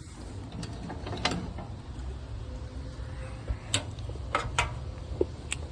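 Scattered metallic clicks and taps of an Allen key working a side screw out of a toaster oven's metal casing, with a steady low hum underneath.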